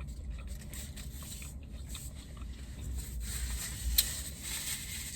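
Faint chewing and small mouth clicks over a low steady hum inside a car, with one sharper click about four seconds in.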